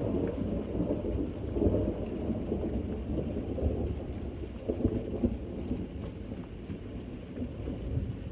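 Thunder rumbling low and rolling over steady rain, swelling around two seconds in and again around five seconds in.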